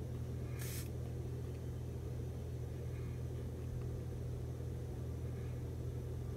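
Steady low hum with a short burst of hiss under a second in.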